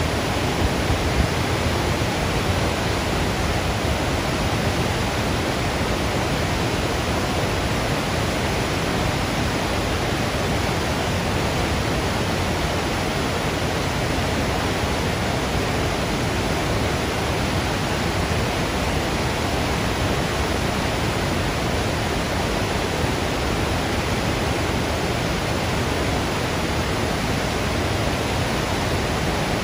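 Steady, unbroken rush of flowing water, a creek or waterfall running hard.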